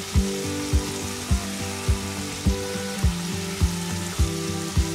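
Background music with held notes and a steady beat a little under two beats a second, over the faint sizzle of chopped tomatoes, green chillies and spices frying in oil in a pan.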